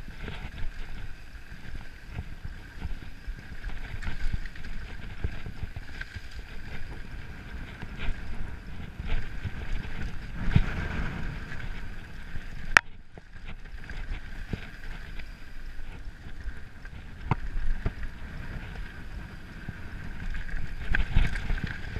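Mountain bike descending a dirt trail at speed: tyres rumbling over dirt and stones, the bike rattling and knocking over bumps, with wind on the microphone. A single sharp clack about halfway through, followed by a moment of quieter rolling.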